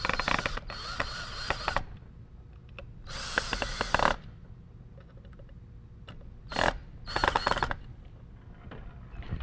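Cordless drill driving wood screws into a pine bracket, in several short runs of whirring about a second long, with pauses between them as each screw is seated.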